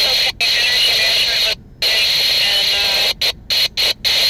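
Railroad radio scanner: hissing static with a faint, garbled voice in it, cutting out abruptly several times, most often near the end.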